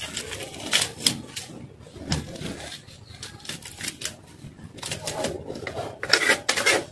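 Knife cutting a pompano: a series of sharp taps and scrapes of the blade against the fish and the cutting surface, irregular at first and bunched into a quick run of strokes about six seconds in.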